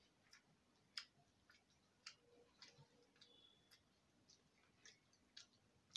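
Faint, irregular soft clicks and smacks of eating rice and curry by hand: chewing, and fingers working the rice on a steel plate.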